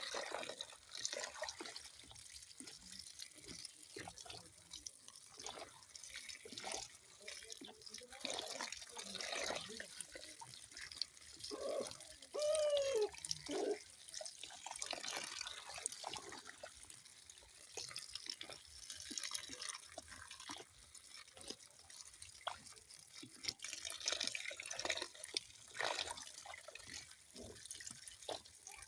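Water dripping and splashing in small, irregular drops over a light trickle. About twelve seconds in comes a louder moment with a short tone that bends up and down.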